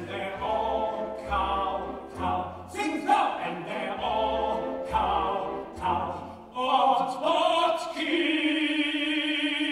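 Two men singing a musical-theatre song in duet over an orchestra whose bass pulses on the beat. About eight seconds in, they end on a long held note.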